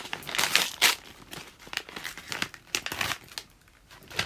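Paper wrapping crinkling and rustling as it is handled and opened by hand, loudest in the first second, then a string of shorter rustles that die down near the end.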